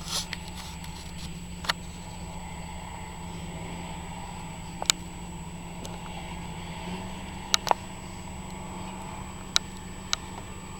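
Harvest machinery engine running steadily, a low drone whose pitch steps up slightly about two-thirds of the way through. Six short sharp knocks punctuate it, two of them close together.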